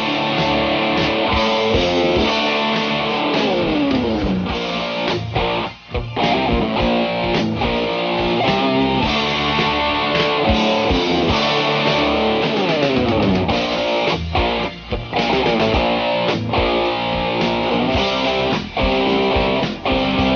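Steinberger Spirit headless electric guitar played through two compact effects pedals, a distorted lead tone. A continuous line of fast notes, with runs that sweep down in pitch a few seconds in and again around the middle.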